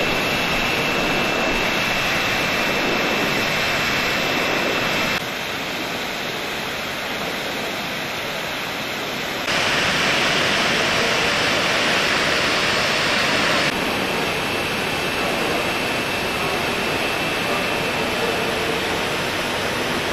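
Steady, loud rushing noise of running machinery with a faint high whine, like blowers or pumps running in an exhibition hall. The level jumps abruptly up or down every four to five seconds.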